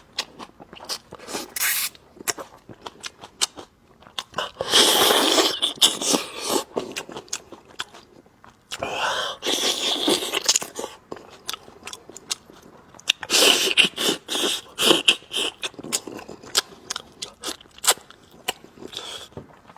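Close-miked eating sounds of lamb spine bones being gnawed: a constant run of wet chewing and lip-smacking clicks. Three louder sucking slurps of about two seconds each come about 5, 9 and 13 seconds in, as the fat and marrow are drawn from the bones.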